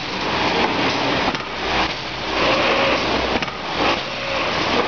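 Steady, loud machinery noise with irregular faint clicks.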